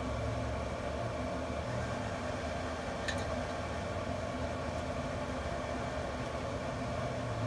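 Camp Chef pellet grill running under its controller: a steady mechanical hum from the combustion fan and the auger motor feeding pellets, with a faint click about three seconds in.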